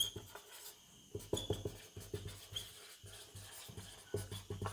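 Marker pen writing on a whiteboard: faint, short, irregular strokes and rubs of the felt tip across the board.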